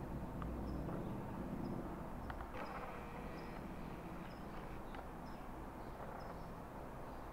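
Distant drone of North American AT-6 Texan Pratt & Whitney R-1340 radial engines, easing off after the first couple of seconds. A short high chirp repeats about once a second over it.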